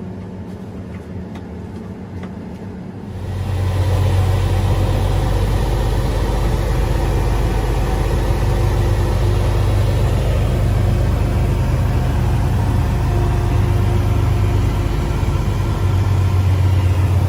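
Vehicle engine running steadily with a low rumble, growing clearly louder about three seconds in and then holding at that level.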